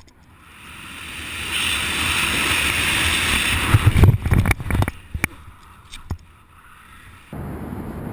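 Rushing wind on a helmet-mounted camera's microphone during a base jump freefall. A hiss builds over the first few seconds, then comes heavy low buffeting with several sharp knocks around the middle. It dies away, and shortly before the end steady low background noise cuts in.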